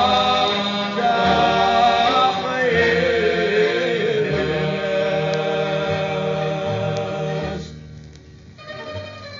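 Cape Malay vocal music played from a vinyl LP: voices singing together over a regular bass beat, one line winding up and down in pitch. Near the end the singing stops and the accompaniment carries on more quietly.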